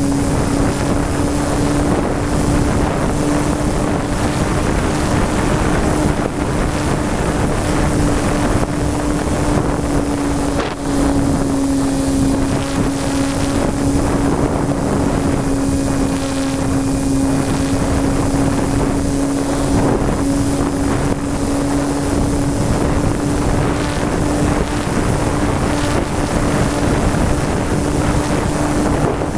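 Radio-controlled model plane's motor and propeller running steadily in flight, heard from a camera on the airframe as one constant hum, with wind rushing over the microphone.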